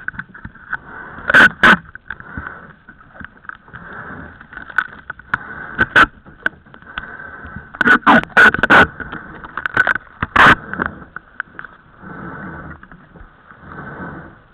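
Irregular knocks, thumps and clatter of gear on a sailboat's deck as crew move about and handle lines. The loudest come in a quick cluster about eight seconds in, and one more follows a couple of seconds later.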